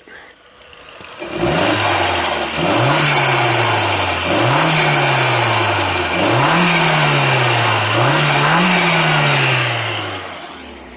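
Mk4 Golf GTI's turbocharged engine blipped four times, each rev rising quickly and falling back slowly, with a hiss above the engine note. The vacuum pipe from the diverter valve to the wastegate actuator is disconnected, reproducing the leak that the owner says causes turbo flutter.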